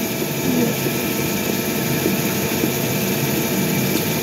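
Steady mechanical drone with several constant hum tones, like a motor running.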